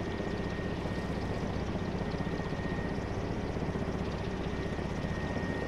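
CityAirbus eVTOL's ducted electric rotors running steadily: a fast, even rotor pulse with a thin, steady high whine over it.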